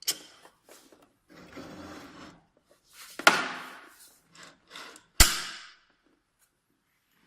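Handling noises of equipment being moved and fitted: rubbing and scraping, with a light knock at the start and two sharp knocks about three and five seconds in.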